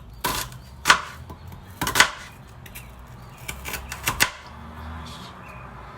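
Kitchen knife chopping on a cutting board: three sharp strikes about a second apart, then a few lighter taps.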